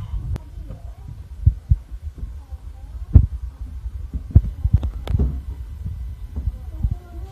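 Irregular low thumps over a steady low rumble, with several sharp knocks, the loudest about three seconds in and again around five seconds.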